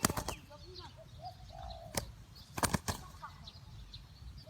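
Spotted dove giving one short, burred coo about a second and a half in. A few sharp claps come at the start and again around two seconds in, with faint high chirps of small birds behind.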